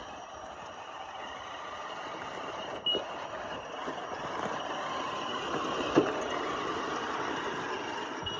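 Traxxas TRX-4 Sport RC crawler with a brushless motor driving over wet, bumpy rocks: a steady motor and drivetrain sound that grows slowly louder, with a short click about three seconds in and a sharp knock about six seconds in as the truck hits rock.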